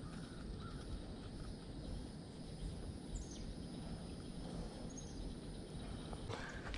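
Outdoor ambience: a steady low rumble with a few brief high chirps, likely from a small bird, and a short rustle near the end.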